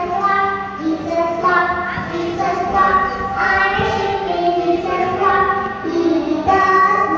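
A young girl singing a children's song about being a sheep in Jesus' flock into a microphone, with music behind her and long held sung notes.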